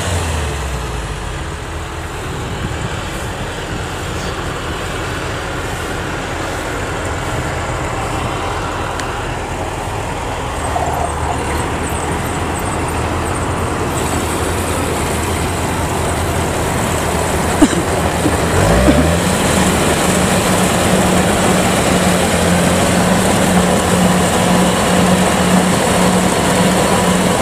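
Kubota DC-105X rice combine harvester running while it harvests: a dense, steady diesel-engine and threshing-machinery drone. About two-thirds of the way in, the pitch climbs quickly as the machine speeds up, then holds at a higher steady hum.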